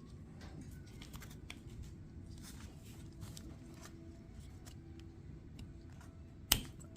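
Small engine parts and hand tools being handled: scattered faint clicks and rattles over a low steady rumble, with one sharp knock about six and a half seconds in.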